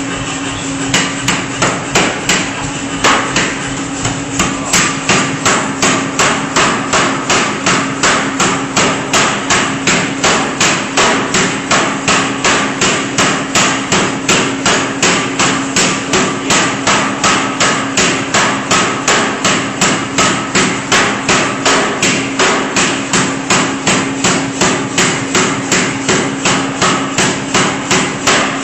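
C41-150 self-contained pneumatic forging hammer striking repeatedly. The blows are uneven at first, then settle about four seconds in into a steady rapid rhythm of roughly two to three a second, over a steady machine hum.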